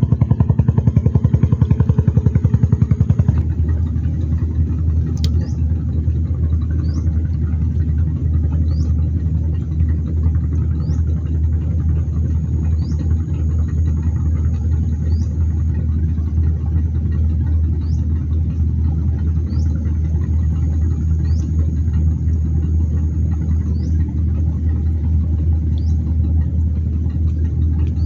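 An engine running with a deep, steady hum. For the first three seconds it pulses rapidly, then it settles into an even drone. Small high chirps recur every second or two over it.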